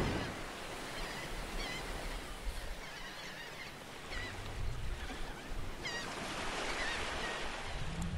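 Sea surf washing with a steady hiss, with gulls crying again and again over it. At the start, the rumble of a cannon shot dies away.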